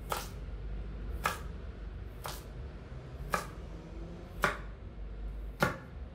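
Kitchen knife chopping a carrot on a wooden cutting board: six sharp chops about a second apart, the last two the loudest.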